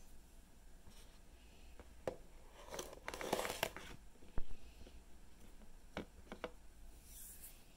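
Knife cutting a ripe chili pepper pod open on a paper plate: scattered clicks and taps of the blade against the plate. A rustle of the plate about three seconds in is followed by a sharp knock, the loudest sound.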